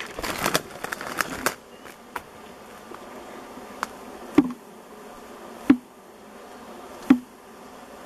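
A disturbed swarm of honey bees buzzing steadily, just shaken off a fir branch into a box. In the first second and a half the branch rustles and crackles as it is shaken. About four, five and a half and seven seconds in come three brief, loud buzzes as single bees fly close past.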